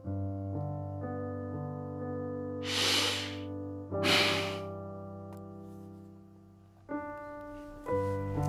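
Soft piano background music, with a woman taking two deep, audible breaths, like a heavy sigh, about three and four seconds in.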